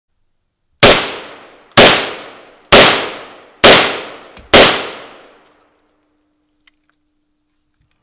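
Five gunshots from a semi-automatic AK-style gun fired in steady succession, about one a second, each followed by a long echoing tail that dies away.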